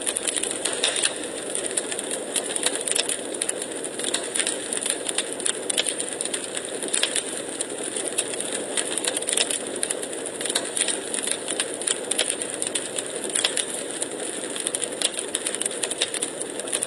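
Logs burning in a fireplace, crackling continuously with many quick, irregular snaps over a steady noise of the fire.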